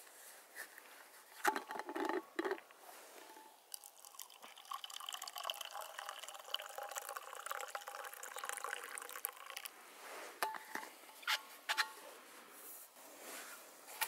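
A drink poured from a stainless steel vacuum flask into its steel cup, trickling for about six seconds. Sharp clicks and knocks from handling the flask and cup come before and after the pour, the loudest a couple of seconds in.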